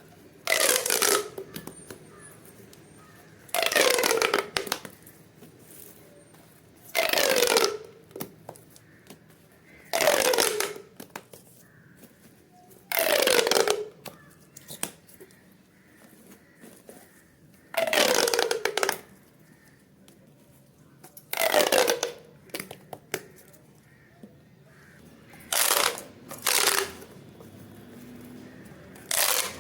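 Crunchy pop toy being squeezed over and over, a crackling crunch about every three seconds. Each crunch lasts about a second and slides down in pitch. Near the end, two shorter crunches come close together.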